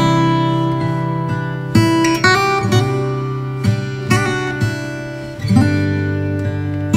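Background music of strummed acoustic guitar chords, each new strum ringing on.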